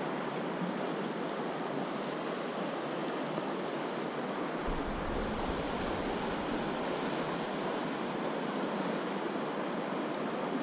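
Steady rushing of a fast-flowing river around the wading angler, an even wash of current and riffles.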